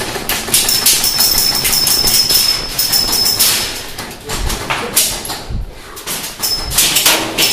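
Airsoft guns firing on full auto in rapid, rattling bursts, with a steady high whine over the first run of shots. The firing breaks off about three and a half seconds in, a few low thuds follow, and another burst starts near the end.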